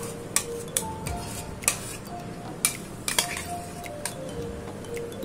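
Kitchen utensils clinking against a mixer-grinder jar and a glass bowl as boiled onion paste is scraped out: several sharp, irregularly spaced taps.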